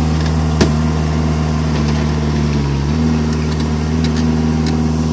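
Vermeer S925TX tracked mini skid steer's engine running steadily as it works the dirt, its pitch dipping briefly near the middle and then recovering. A sharp knock sounds about half a second in, with a few lighter clicks later.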